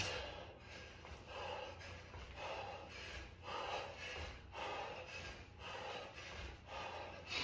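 A man breathing hard in quick, regular puffs, roughly two a second, while doing jumping lunges.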